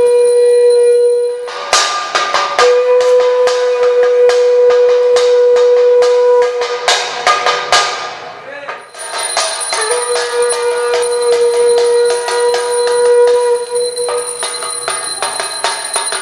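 A conch shell blown in long steady notes, with a break after about two seconds and another from about six to ten seconds in. Under it a hand bell and struck metal ring rapidly throughout, as during a Hindu puja aarti.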